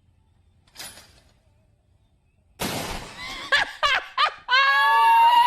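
A faint short crack about a second in, then a loud shotgun blast about two and a half seconds in, followed by short excited yelps and a long high-pitched cry.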